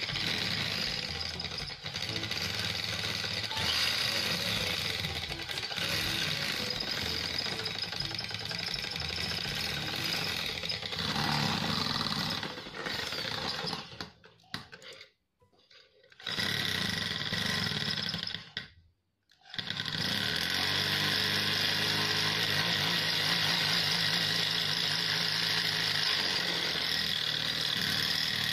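Corded electric drill boring through the metal flange of a motorcycle exhaust header to enlarge its bolt hole, the motor running steadily as the bit cuts. It stops twice for a second or two about halfway through, then runs on.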